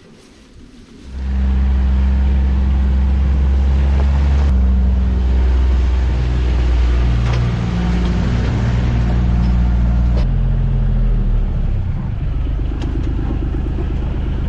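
A small farm vehicle's engine comes in loudly about a second in and runs steadily as it pulls a pumpkin trailer, its note shifting a couple of times along the way.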